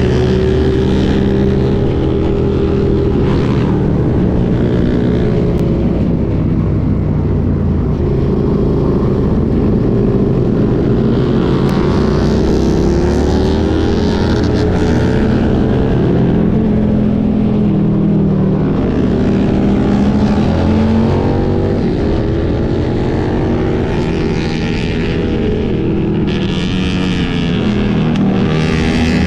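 Suzuki SV650's 645 cc V-twin engine running at cruising speed, its pitch rising and falling several times with the throttle, over steady wind noise.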